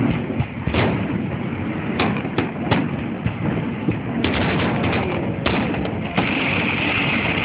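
Aerial fireworks shells bursting in quick succession: a string of sharp bangs over a constant low rumble and crackle. A steady high hiss sets in about six seconds in.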